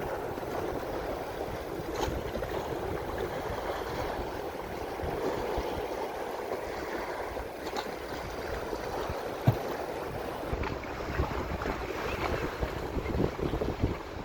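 Sea waves washing ashore, a steady rushing noise, with wind gusting on the microphone. A single sharp knock about nine and a half seconds in.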